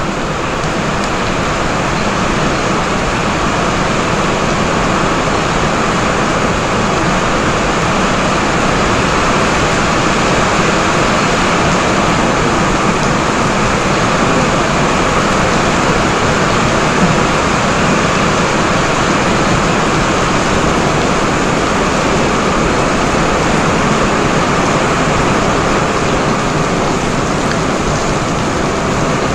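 Heavy pouring rain with wind: a loud, steady, even rush of noise with no breaks.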